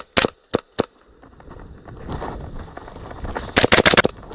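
Gas blowback MP7 airsoft gun firing: three single sharp shots in the first second, then a quick burst of about five shots near the end. Rustling movement in between.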